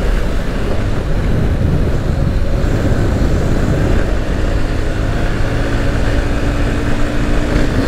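Wind rushing over the helmet-mounted microphone of a Yamaha Fazer 150 motorcycle riding at road speed, with the bike's single-cylinder engine running underneath. About halfway through, a steady engine note comes through more clearly.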